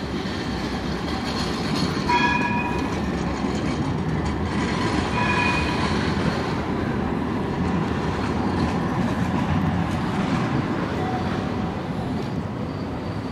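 Tram passing close by: a steady rumble of wheels on rails that swells in the first couple of seconds and eases near the end, with two short high tones about two and five seconds in.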